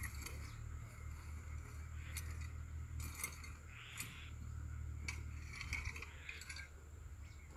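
Metal rake tines scraping and dragging through dry, stony soil in repeated strokes, as sown coriander seed is raked into the seedbed.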